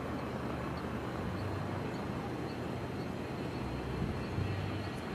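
Boeing 727-200's three Pratt & Whitney JT8D turbofans at takeoff power as the jet accelerates down the runway: a steady jet noise, growing slightly louder near the end.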